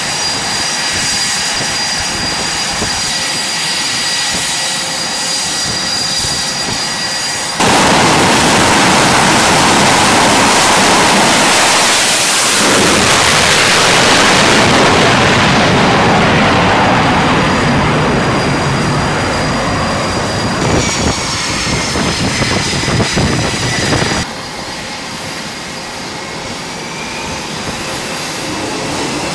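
Jet engines whining on a carrier flight deck, then about eight seconds in the sudden, much louder roar of an F/A-18 at full power on a catapult launch, which swells and slowly fades as the jet departs. Near the end the roar gives way abruptly to a quieter jet whine with a thin high tone.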